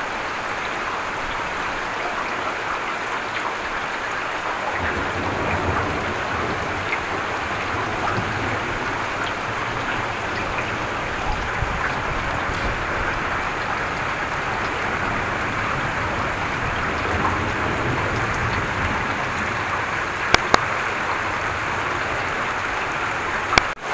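Heavy rain falling steadily. From about five seconds in, a low rumble of thunder rolls underneath it for several seconds, following a lightning flash. A couple of sharp clicks come near the end.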